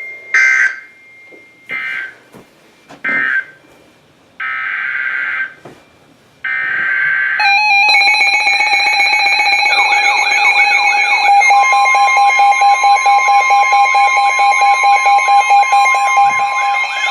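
Emergency Alert System SAME data bursts: three short buzzy bursts, then two longer ones. About seven seconds in, a loud continuous weather-radio alert tone starts, and from about ten seconds rapidly repeating sweeping, warbling tones join it.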